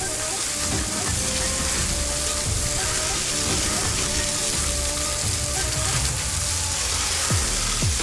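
Background music with a deep bass line and a steady hiss.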